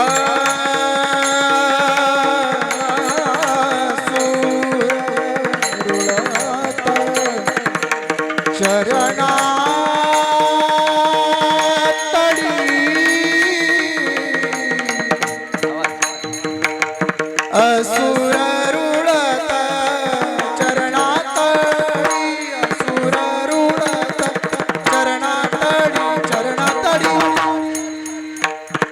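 Marathi Varkari kirtan chal: a man sings long, gliding melodic phrases over a steady drone, accompanied by mridang drum strokes. The singing fades near the end while the drumming carries on.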